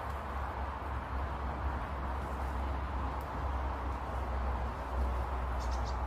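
Steady low outdoor background rumble, with a few faint high bird chirps near the end.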